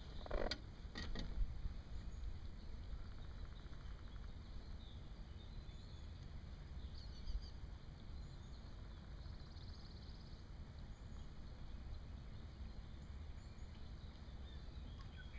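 Low, steady wind rumble on the microphone, with a couple of small knocks about a second in and a few faint, high bird chirps.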